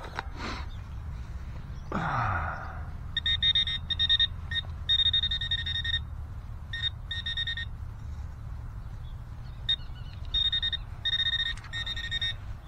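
Garrett pinpointer buzzing in on-and-off bursts of one steady high tone as it is probed at the dig hole, signalling metal near its tip. About two seconds in, a short sound slides down in pitch.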